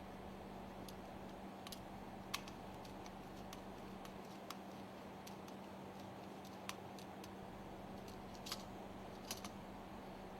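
Light, scattered clicks of small tools and parts being handled while wires are connected in the lubricator's terminal box, over a steady faint hum. The clicks come irregularly, a dozen or so; the sharpest is a little over two seconds in.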